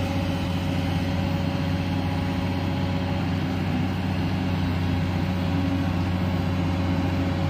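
JCB tracked excavator's diesel engine running steadily with a low hum, a thin steady whine above it.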